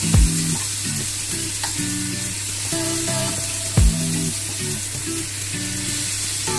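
Beef steaks sizzling in hot butter in a frying pan while a spoon bastes them, over background music with low bass notes and two deep kick-drum thumps.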